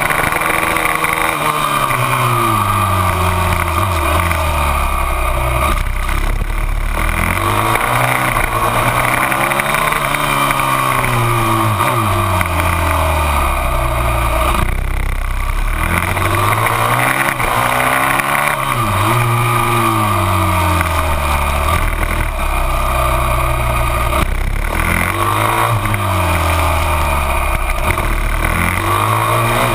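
TM 450 SMX supermoto's single-cylinder four-stroke engine heard on board, revving up through the gears and dropping back again and again as it accelerates out of corners and brakes into the next. Wind rushes over the microphone throughout.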